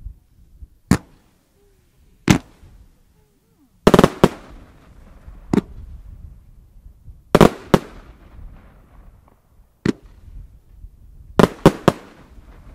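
Aerial fireworks going off: about a dozen sharp bangs at uneven intervals, some single and some in quick clusters of two to four, several followed by a short fading echo.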